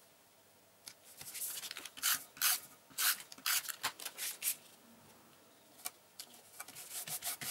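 Cardstock rustling and rubbing as hands handle and press paper pieces onto a folded card box template: a run of short scraping strokes, a pause of about a second, then more strokes near the end.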